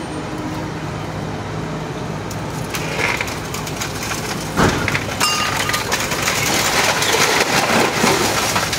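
A dense run of cracks and clicks builds up over a steady low rumble, with one sharp knock about halfway through.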